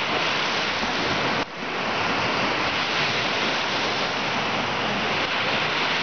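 Small Baltic Sea waves breaking and washing up on a sandy beach: a steady rushing surf noise that drops out for an instant about a second and a half in.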